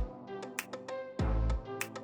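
Background music with a steady beat: deep bass hits and sharp percussive ticks under a melody.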